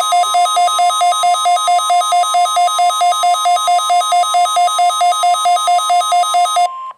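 Electronic alert signal of a NOAA Weather Radio Required Weekly Test: a loud beep pulsing about four times a second over a steady tone, cutting off just before the end.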